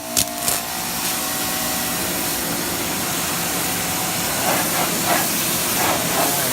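Ryobi 2,000-PSI electric pressure washer kicking on suddenly and running, its electric motor and pump going with a steady hiss of the water spray.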